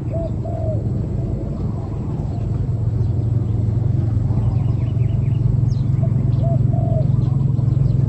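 Spotted dove cooing, two short low coos near the start and another pair about six seconds in, over a steady low rumble that is the loudest sound. Faint chirps of small birds come and go.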